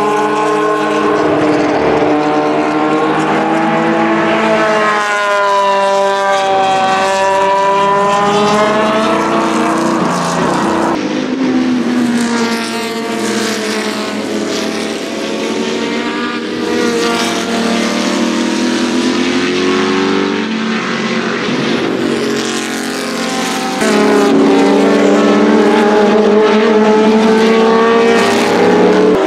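Historic racing sports cars at full throttle passing at speed, among them the Abarth Osella PA1 with its high-revving 2-litre straight-four. The engine notes rise and fall through the revs and drop in pitch as each car goes by, with abrupt changes where separate passes are joined.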